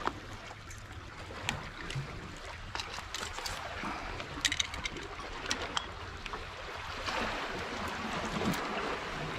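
Steady wash of water along a rocky shoreline, with scattered small clicks and scuffs of handling gear and footsteps on the rocks.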